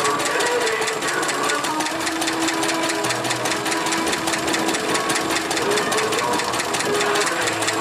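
Small vintage Lister stationary engine running steadily, with a rapid, even mechanical clatter.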